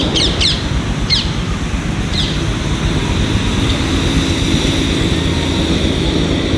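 Steady low rumble of a 10¼-inch gauge miniature steam train running on its track, with a small bird chirping a few quick descending notes in the first two seconds.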